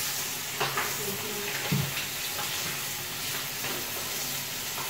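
Flour-coated chicken pieces frying in hot oil in a pot: a steady sizzle, with a couple of light knocks.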